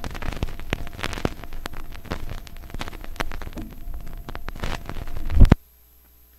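Vinyl LP surface noise: irregular clicks and pops from the stylus in an unrecorded stretch of groove, over a low rumble. About five seconds in it swells to a low thump and then cuts off suddenly.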